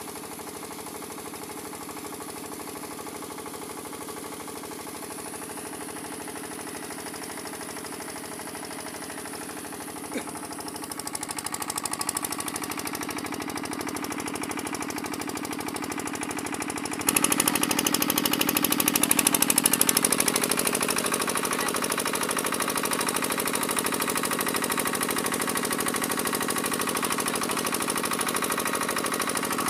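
Kirloskar single-cylinder diesel engine running steadily, driving an irrigation water pump, with water gushing from the discharge pipe. The sound grows louder a little before halfway and jumps up suddenly just past halfway.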